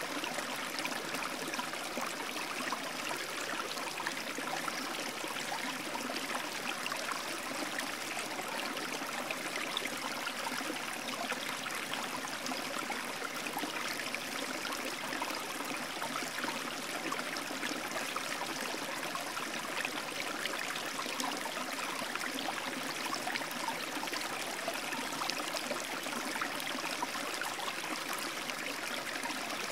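Steady rushing of running water, like a stream, an even wash with no breaks or changes.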